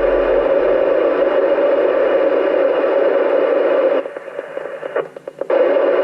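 Steady static hiss from an amateur radio transceiver's speaker, with the receiver open on an unoccupied ISS downlink. The hiss drops away unevenly for about a second and a half near the end.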